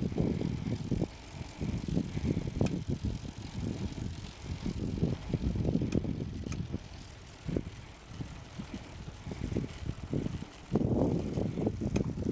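Wind buffeting the microphone of a camera on a moving road bicycle, coming in irregular low gusts that ease off for a few seconds past the middle and come back strongly near the end.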